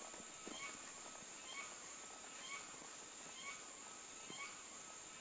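Faint outdoor countryside ambience: a steady high-pitched drone with a short chirping call repeated about once a second.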